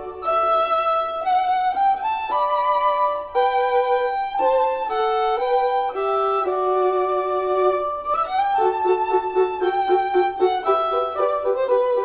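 Instrumental music played back through the Edifier M3200 2.1 speaker system as a sound test, unequalised: a melody of held notes stepping up and down every half second or so, with several notes sounding together.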